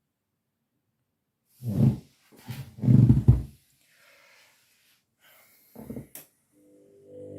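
Washing machine drum motor turning the drum in a few short, loud bursts, then a steady motor hum with a faint whine setting in near the end.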